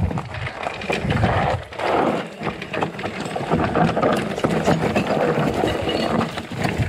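Santa Cruz Heckler electric mountain bike riding over rocky singletrack: tyres crunching over rock and loose stones, with frequent irregular clacks and rattles from the bike.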